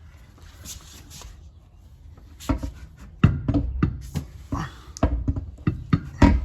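Irregular clanks and knocks of hands and tools on car suspension parts during a spring change. Quiet handling at first, then a run of sharp knocks from about two and a half seconds in.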